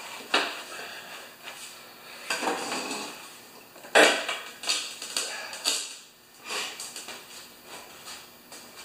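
Knocks, scrapes and clatter as a Honda HRA214 lawn mower is tipped onto its side and a plastic tub is set under its engine to catch the draining oil. The loudest knock comes about four seconds in, followed by a few lighter clunks.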